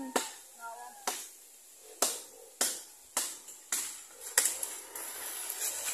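A run of seven sharp knocks or strikes, each dying away quickly, coming about every half second to a second.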